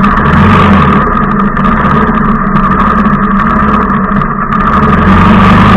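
Motorcycle engine running steadily at low revs, close to the microphone.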